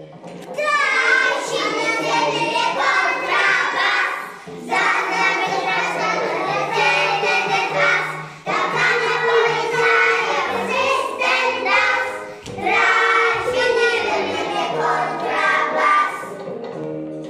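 A group of young children singing a song together in phrases with short breaks, over recorded backing music. The singing stops about a second before the end while the backing music carries on.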